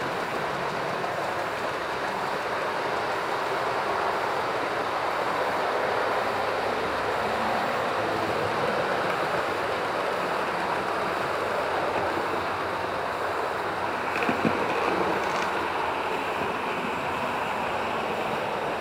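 Model train running along the layout's track, a steady rolling noise of wheels on rail, with a couple of short clicks about fourteen seconds in.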